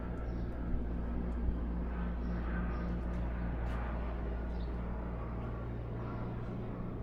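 Steady low mechanical hum of the outdoor city background, with faint high ticks and two short soft knocks in the first second and a half.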